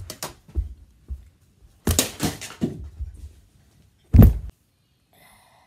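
A series of thumps and bumps from a child scrambling about, with the loudest, heaviest thump about four seconds in as he leaps onto a bed.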